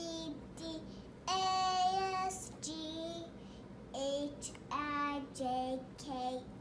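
A young girl singing a simple tune in a high child's voice, with one note held for about a second early in the phrase and shorter notes after it.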